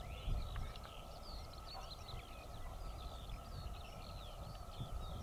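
Birdsong: a busy, continuous stream of quick chirps and warbles from small birds, over a low, uneven rumble and a faint steady hum.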